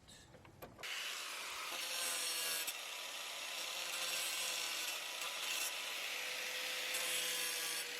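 Power tool cutting away a part that is in the way of a truck's new cold air intake, starting about a second in and running steadily with a motor whine under the cutting noise.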